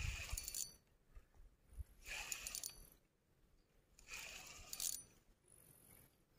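Three short, faint bursts of light metallic jingling and clinking, about two seconds apart.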